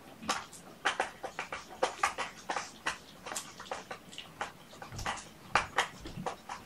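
Cat litter being scooped and scraped in a litter box: a dense, irregular run of short scratchy scrapes and rattles, several a second.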